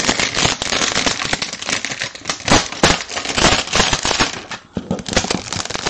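Clear plastic packaging crinkling and crackling as it is pulled off a sealed cardboard box, a dense, uneven run of crackles.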